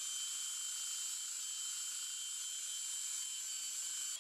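Proxxon RBS/A cordless tube belt sander running, a steady high-pitched whir of the motor and belt.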